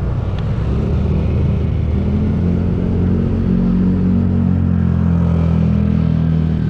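A motor vehicle's engine running steadily while moving, with a low rumble; its pitch rises a little about two seconds in and then holds.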